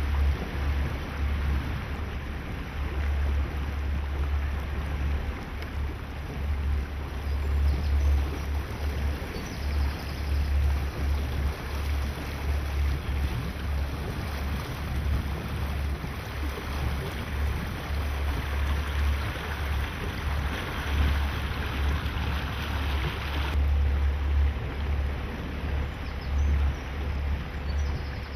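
Wind buffeting the microphone on a motor boat under way, a gusty low rumble over a steady rush of water along the hull.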